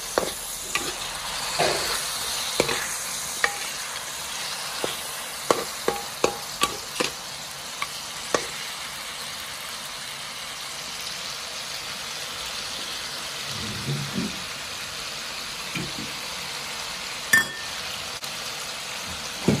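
Meat frying in oil in a wok: a steady sizzle, with a metal spatula scraping and clinking against the pan as the pieces are stirred. The clinks come often over the first eight seconds or so, then mostly stop, with one more near the end.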